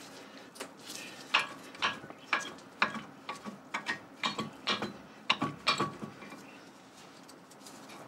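Front brake caliper of a VW Up being worked off the disc by hand: a run of irregular sharp metallic clicks and knocks as the caliper and pads shift against the carrier, dying down about six seconds in.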